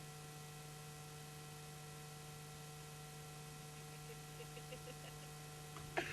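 Faint steady electrical hum, with a few faint ticks about four seconds in and a click just before the end.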